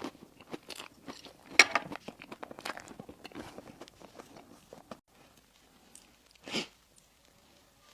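Close-miked crunching and chewing of a crispy dessert: rapid crackling bites for about five seconds, the loudest about one and a half seconds in, then quiet chewing and one short, louder sound later.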